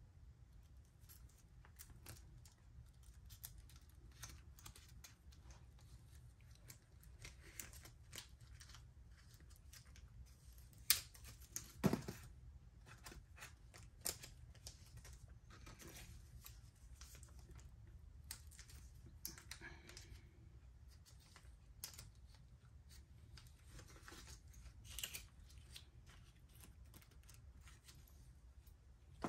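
Small clear plastic bags of knitting machine accessories being handled and opened: scattered light rustles and clicks, with two sharper clicks about eleven and twelve seconds in.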